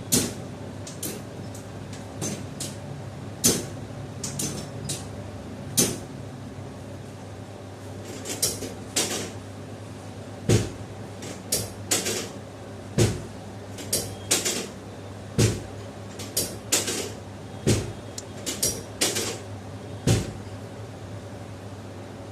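Chiropractic drop table clacking: a run of sharp clacks and knocks, with five heavier thuds about two and a half seconds apart in the second half as the table's drop section falls.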